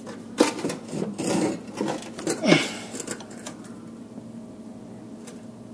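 Metal hand tools clinking, knocking and scraping against a snow blower's engine pulley and bolts, a busy run of about three seconds that then goes quiet.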